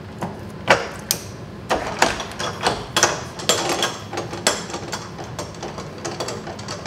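Metal-on-metal clicks and clinks, irregular, as a No. 31 drill bit and its collet are worked loose from a milling machine spindle, over a steady low hum.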